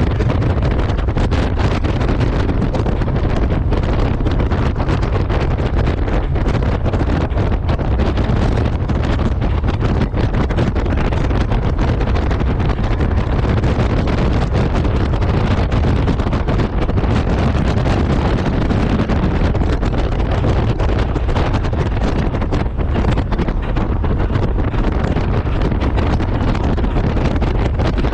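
Steady wind rushing and buffeting over the microphone of a rider on a moving Honda Gold Wing motorcycle, with a constant low rumble underneath.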